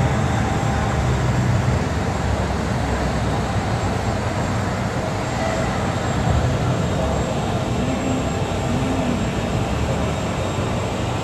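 Commercial airliner's jet engines, a steady low rumble.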